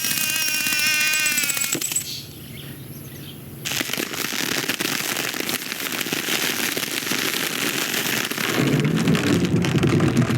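Layered film sound effects: a high, pitched sound gliding up and down for about two seconds, a brief lull, then a dense crackling rattle of rapid snaps for several seconds, which gives way near the end to a lower, pitched droning sound.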